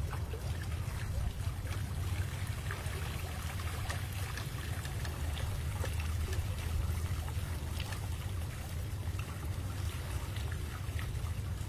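Many small fish flipping and splashing in shallow water on a lift net as it is raised, a continuous patter of tiny splashes and trickling water over a steady low rumble.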